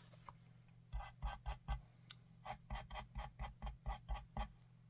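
Light, quick taps of a glue pen's tip dabbing glue onto small paper die cuts against a cutting mat, about four a second in two runs with a short pause between.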